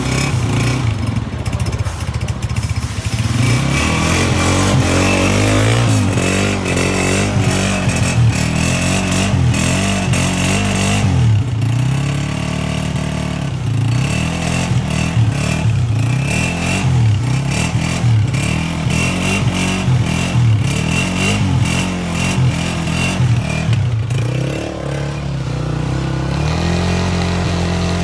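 Honda CG125's single-cylinder four-stroke engine running, its throttle blipped again and again so the pitch rises and falls. Near the end it is held at a steady, higher speed.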